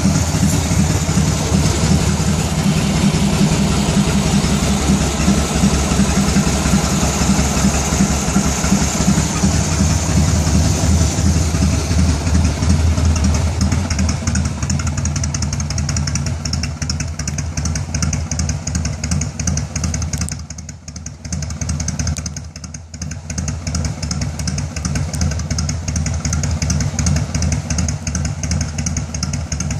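Motorcycle V-twin engine tuned with a ThunderMax ECM, idling slowly at a low idle of about 647 rpm with a steady, rhythmic exhaust pulse. The sound dips briefly twice about two-thirds of the way through.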